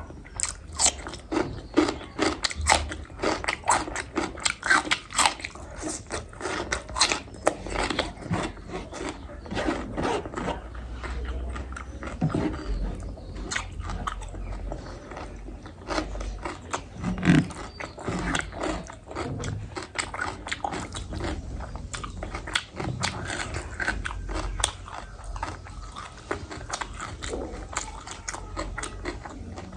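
Close-miked sounds of a person eating: chewing and biting with frequent crisp, crackling crunches, irregular throughout.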